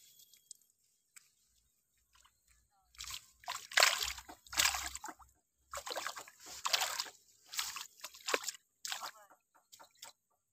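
A hooked pacu (bawal) splashing in shallow, weedy water as it is played and pulled in: a run of about eight loud splashes, each about half a second long, starting about three seconds in and ending shortly before the fish is lifted clear.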